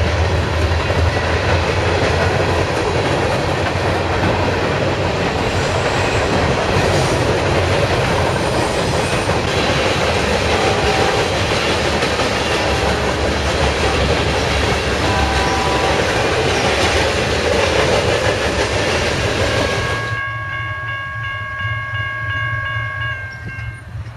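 Freight cars of a passing train rolling by close at speed, their wheels running loud on the rails. About 20 seconds in the rolling noise drops away abruptly, and a distant locomotive horn holds a steady chord of several notes for a few seconds.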